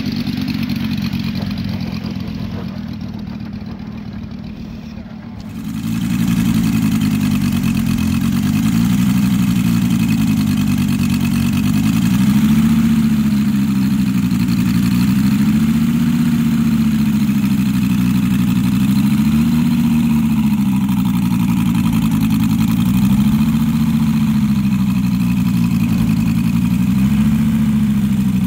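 Engine of a large radio-controlled scale model of a Zero fighter running on the ground, its pitch rising and falling slowly and evenly, about every three and a half seconds. Before this, a model plane's engine fades as it taxis away, then cuts off suddenly about five seconds in.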